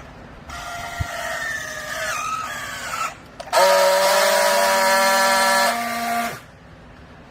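Hydraulic used-clothes baler giving a wavering high whine, then a loud, steady multi-tone squeal for nearly three seconds that cuts off suddenly.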